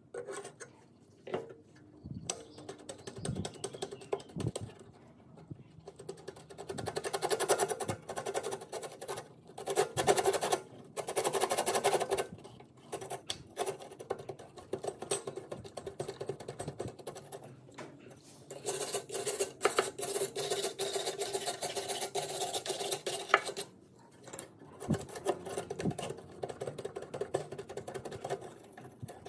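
Rusty metal parts of a comb-binding machine clicking, rattling and scraping as its bar of comb fingers is worked by hand and pulled loose from the frame. The scraping comes in several stretches, the longest about two-thirds of the way through.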